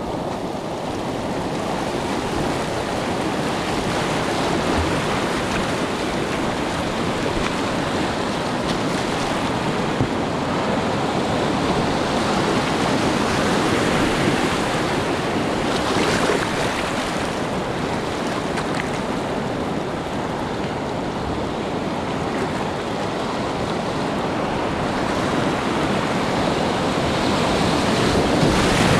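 Class IV whitewater rapids rushing steadily around a kayak, heard up close from the paddler's position, with the occasional splash of paddle strokes.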